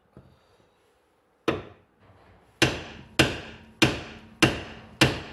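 Hammer blows on the steel front steering knuckle of a Toyota Altezza, driving the lower ball joint out of its seat. One sharp strike comes about a second and a half in, then five evenly paced strikes a little over half a second apart, each ringing briefly.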